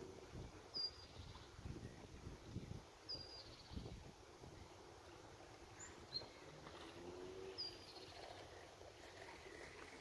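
Faint bird calls: a short, high, falling chirp repeated three times, a few seconds apart, with a few other faint bird notes over a low rumble.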